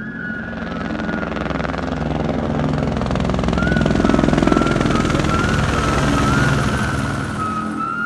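Helicopter flying overhead, its rotor chop swelling to its loudest about halfway through and then fading, with a soft wavering music melody above it.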